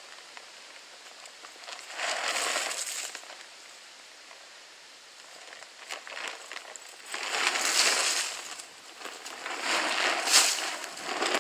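Shelled deer corn poured from a bag onto the forest floor, a hissing patter of kernels hitting ground and leaves. It comes in several bursts with quieter gaps between.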